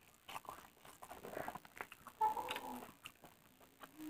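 Close-up mouth sounds of a person eating soaked rice by hand: chewing and a run of short wet clicks and smacks. A brief clucking call about two seconds in is the loudest sound.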